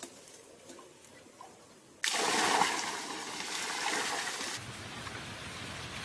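Quiet with faint ticks, then about two seconds in a rush of gushing, splashing water starts suddenly. It is loudest at first and settles to a steady, quieter rush.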